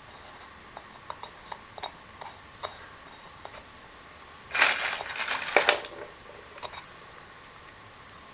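Light clicks and taps of parts and tools being handled, then a loud rustling, crinkling burst lasting about a second just past the middle.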